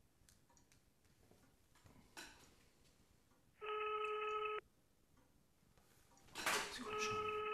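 Telephone ringback tone heard over the line while an outgoing call waits to be answered: two steady rings, each about a second long and about three seconds apart. Faint clicks of the phone's keys come before them, and a short rustle just before the second ring.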